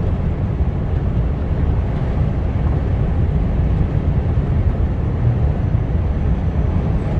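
Steady low rumble of a heavy goods vehicle's engine and tyres on the road, heard from inside the cab while cruising.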